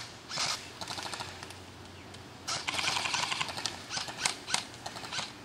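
Airsoft electric guns (AEGs) firing in bursts of rapid clicking. There are a few short bursts, then a longer full-auto string of about a second, starting about two and a half seconds in, then more quick bursts near the end.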